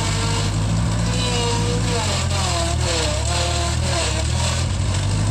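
Gehl Hydracat 4400 skid steer's engine running steadily.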